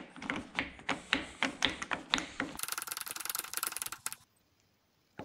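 Adjustment handle of a click-type torque wrench being twisted to set it to 100 Nm, its setting mechanism clicking. The clicks come about four a second at first, then as a quicker run of fast ticking that stops about four seconds in.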